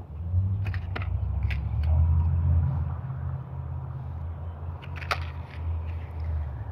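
A low rumble, loudest over the first three seconds, under a few light clicks and crackles of plastic-and-card lure packages being handled.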